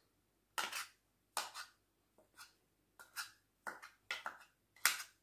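A metal spoon scraping and clinking against a bowl as dog food is spooned and pressed into it: a series of short, irregular scrapes and taps, about eight in all, with pauses between.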